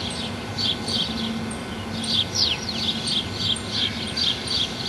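A bird chirping in a steady rhythm, about three high chirps a second, with a quick falling whistle about two and a half seconds in, over a faint low steady hum.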